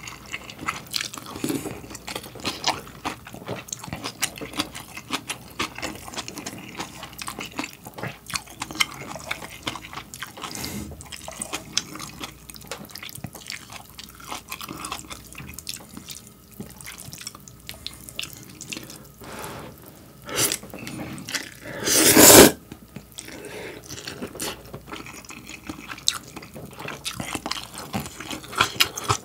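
Close-up eating sounds of a man chewing cabbage kimchi and instant ramen noodles: a steady run of wet crunching and mouth clicks. Two slurps stand out, a short one about two-thirds of the way through and a louder one just after.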